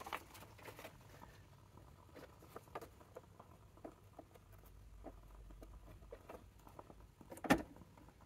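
Faint, irregular clicks and taps from work at a sewing machine as a paper pocket is turned to sew its other side, with one sharper click near the end.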